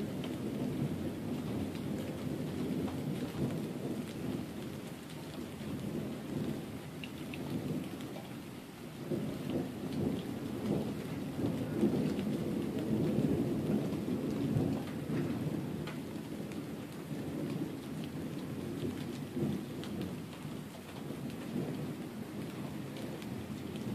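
Thunder rumbling on and off over steady rain, swelling loudest about halfway through, with faint raindrop ticks.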